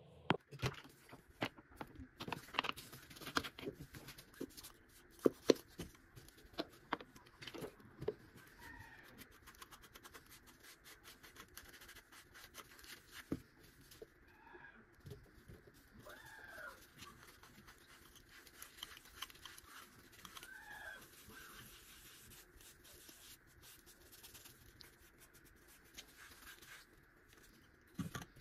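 Clicks and knocks of small bark-covered wooden pieces being handled and set down on a rubber work mat, busiest in the first eight seconds, then quieter handling with a few short faint chirps.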